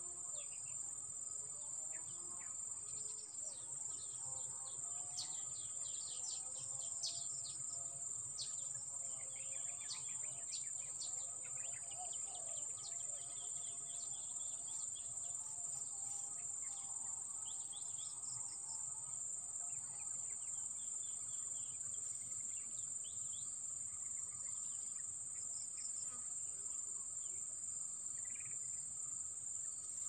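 A steady high-pitched insect drone, cricket- or cicada-like, with many short wild bird chirps and calls over it, busiest in the first half.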